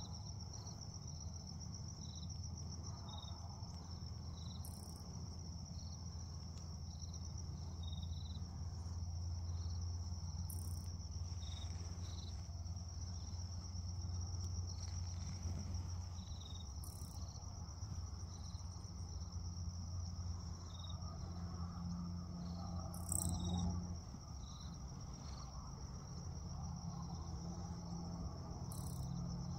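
Crickets trilling steadily in a high, fast-pulsing drone, with short chirps repeating every second or so and a low steady rumble underneath. One brief louder sound about three quarters of the way through.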